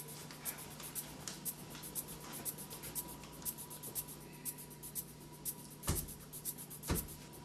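Faint, rapid, irregular scratchy clicking over a steady low hum, with two dull thumps about a second apart near the end.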